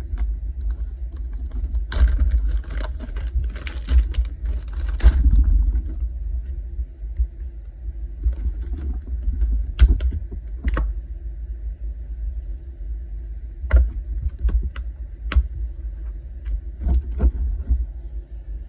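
Plastic packaging of soft-plastic fishing baits being handled and opened: a stretch of crinkling, then scattered clicks and taps, over a steady low rumble.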